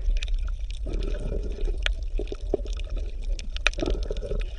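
Underwater water ambience: a steady low rumble with scattered bubbling and small irregular clicks.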